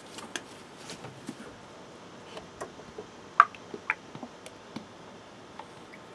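Scattered light clicks and taps of handling under the hood while getting ready to top up the engine with about another quart of oil. The loudest click comes about three and a half seconds in.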